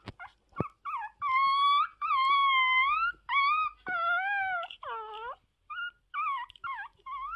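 A very young puppy howling: a string of high, wavering howls, several lasting over half a second, with one falling call about five seconds in and then shorter yips toward the end.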